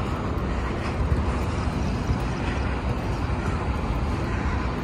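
Wind buffeting the microphone while walking outdoors: a steady, unsteady low rumble over a faint hiss of city background noise.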